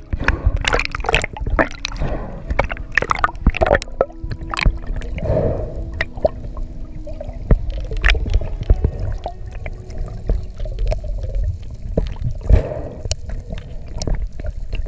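Seawater splashing and sloshing around the camera at the surface as a spearfishing freediver goes under, giving way about four seconds in to muffled underwater noise with scattered clicks as he descends.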